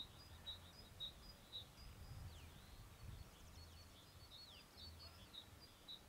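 Near silence: faint birdsong, short high chirps repeating about twice a second with a few falling whistled notes, over a faint low rumble of background noise.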